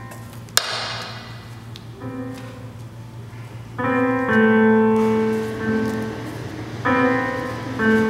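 Synthesizer keyboard playing held, piano-like chords, a new chord or note struck every second or two. A single sharp click about half a second in, with a low steady hum underneath.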